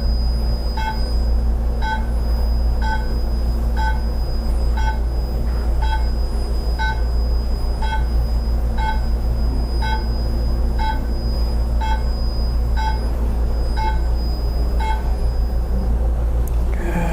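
Therapy laser unit beeping about once a second with short pitched pips, over a steady low hum and a faint high steady tone. The beeps stop near the end.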